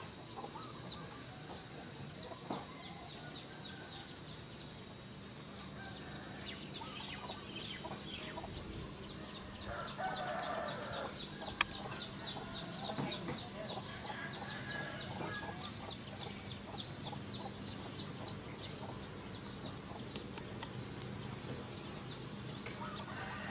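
Domestic chickens clucking, with a steady, fast, high-pitched chirping over them and a louder burst of calls about ten seconds in.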